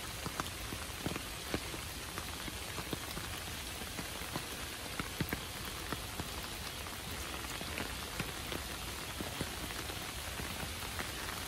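Steady rain: an even hiss with many scattered, sharp ticks of individual drops striking close by.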